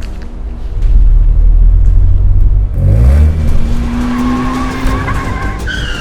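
Car engine rumbling low, then revving up sharply about halfway through and holding a high, slowly rising note, with tyres squealing as the car skids; the pitch drops near the end.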